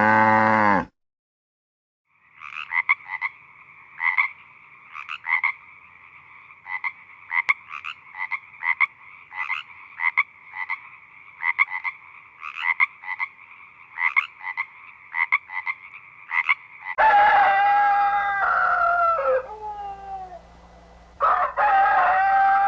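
The tail of a cow's moo, then a frog croaking in short repeated calls for about 15 seconds. About 17 seconds in, a rooster crows twice, each crow with falling pitch.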